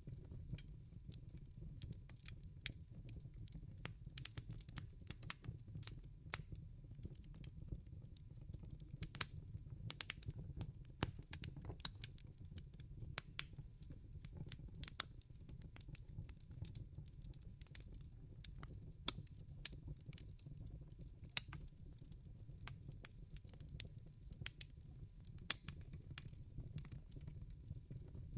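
Wood fire burning in a fireplace: irregular sharp crackles and pops over a low steady rumble of the flames.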